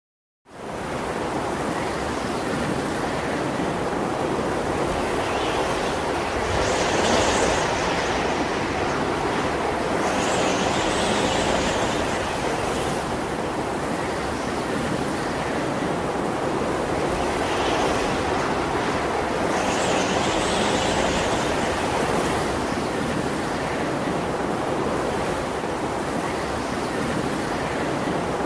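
Sea surf washing onto the shore: a steady roar of noise whose hiss swells each time a wave breaks, every few seconds.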